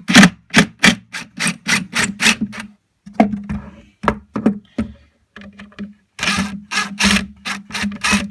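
A hand tool being worked back and forth in quick, even scraping strokes, about three a second, in three runs with short pauses between them, as something is trimmed.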